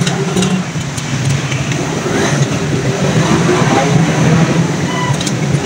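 An engine running steadily, with a low, even hum and a few light metallic clicks.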